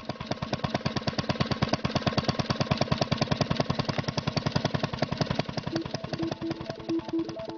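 Fast, even mechanical chugging like a running engine, about a dozen pulses a second, swelling in at the start. A synth melody enters under it about six seconds in.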